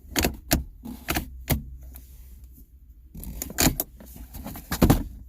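Plastic clicks and rattles from the Kia Optima's gear shifter assembly being handled and probed: single knocks in the first second and a half, then two quick clusters of clattering near the end.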